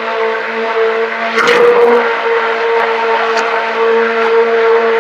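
Handheld stick blender running steadily with an even motor hum, its head submerged in soap batter and blending it toward a pudding-like trace. The sound briefly turns louder and rougher about a second and a half in.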